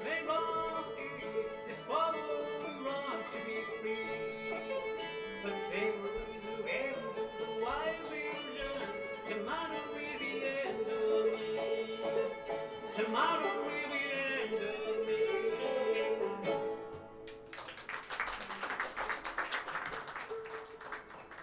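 Old-time string band playing live: a fiddle carrying the tune over a droning string, with guitar backing. The tune ends about three-quarters of the way through, and a burst of audience clapping follows.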